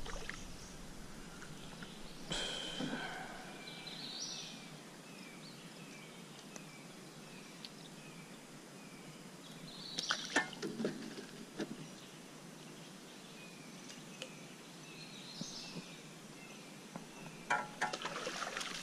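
A hooked rock bass splashing at the water surface about ten seconds in, with another short burst of splashing near the end. Behind it a bird repeats short falling chirps.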